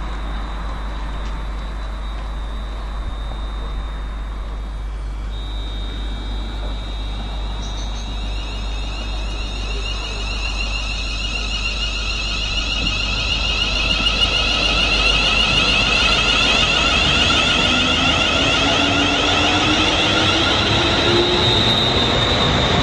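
London Midland Class 350 Desiro electric multiple unit approaching and running past, growing louder from about halfway through. Its traction motors give a high electric whine, and a lower tone rises in pitch near the end.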